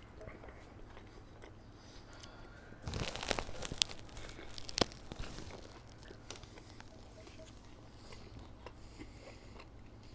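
Paper fast-food packaging crinkling and tearing for about two seconds, a few seconds in, with a few sharp clicks, amid quiet chewing and mouth sounds.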